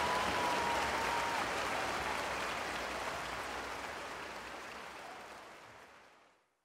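Large crowd applauding, with one held whistle in the first second and a half; the applause fades out to silence near the end.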